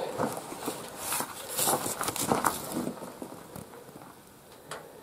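Footsteps and rustling handling noise as someone moves about close to the microphone, loudest in the first few seconds, then quieter with a single sharp click near the end.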